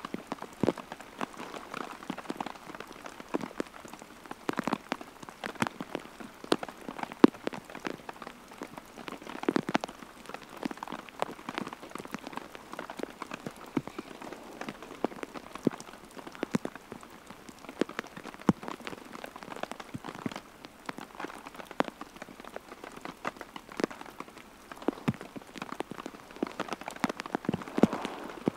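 Steady rain falling, with many individual drops landing as sharp, irregular taps on a surface close by.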